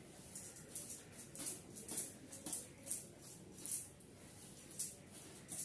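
A comb drawn through long, damp hair in quick strokes. Each stroke is a short, high swish, about ten of them, unevenly spaced.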